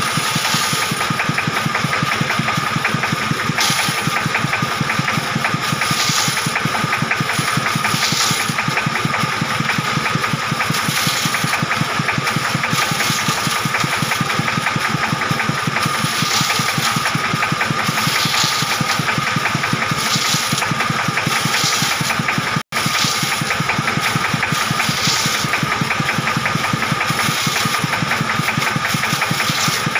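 Large bandsaw running with a steady, rapidly pulsing drone while ripping a wooden board, with a hiss from the cut swelling about every two seconds. The sound drops out for an instant about two-thirds of the way through.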